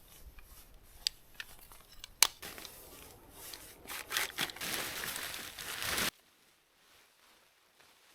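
Tent fabric rustling and crinkling as a tent is taken down and packed, with scattered sharp clicks; the rustle grows denser in the second half and cuts off suddenly about six seconds in.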